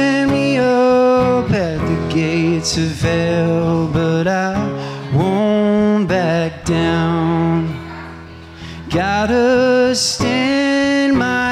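Live solo acoustic song: a man singing long held notes that glide between pitches, over his own strummed acoustic guitar, with a softer passage about two thirds of the way through.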